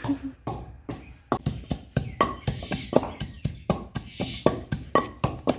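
Wooden pestle pounding in a wooden mortar, crushing coriander leaves and green chillies into a paste: repeated hollow wooden knocks, about four a second, beginning just after the start.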